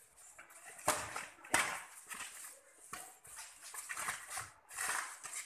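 Badminton rackets striking the shuttlecock during a rally, two sharp smacks close together about a second in, among other short noisy sounds from the court.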